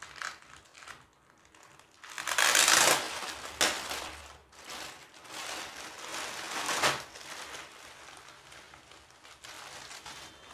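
Clear plastic polybag crinkling and rustling as a folded polo T-shirt is pulled out of it. Loudest about two seconds in, then softer rustles near the end.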